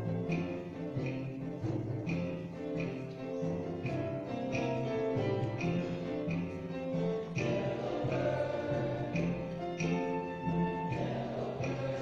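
Men's chorus singing held chords over an instrumental accompaniment that keeps a steady beat.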